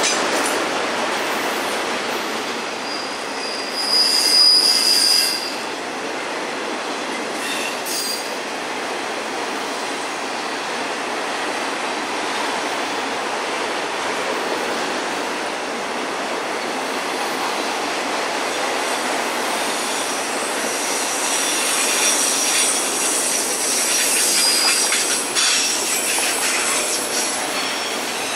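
Autorack freight cars rolling past on the rails, a steady rumble of steel wheels on track. About four seconds in the wheels give a loud high-pitched squeal lasting about a second, and near the end come more squeals and clicking of wheels over rail joints.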